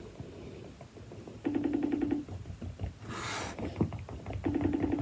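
A phone ringing out on an outgoing call: a short buzzing ring tone from the phone's speaker, heard twice about three seconds apart. A brief rustle comes between the two rings.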